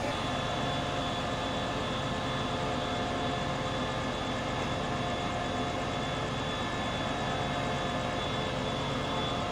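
SRT QSY ("Ultraman") diesel-electric locomotive idling while it stands at the platform: a steady engine hum with a few steady whining tones over it.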